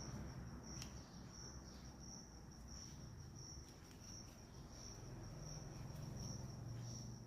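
A cricket chirping in an even, steady rhythm, about one and a half high chirps a second, over a faint low hum and a few light clicks.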